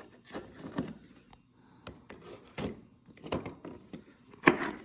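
Handling of an ECHO PB-200 leaf blower's opened recoil starter: scattered light clicks, taps and rubbing as the rope spool and housing are turned over and worked by hand, with a sharper knock near the end.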